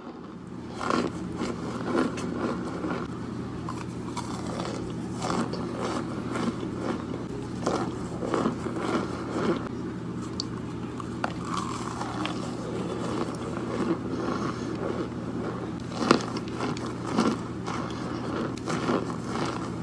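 Close-up eating sounds: a person repeatedly biting and crunching into chunks of a white, crumbly food and chewing, with wet mouth sounds. A steady low hum runs underneath.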